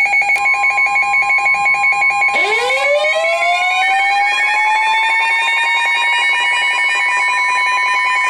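A tornado warning siren winds up about two seconds in. Its pitch rises steadily and then levels off into a steady wail. Under it an electronic alarm beeps rapidly, about eight pulses a second.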